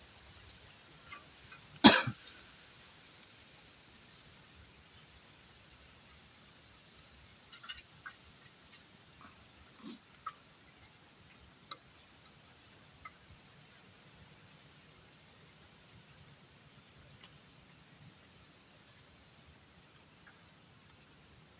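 Crickets chirping: short pulsed high trills that come in groups every second or two. One loud, sharp sound about two seconds in, with a few faint clicks.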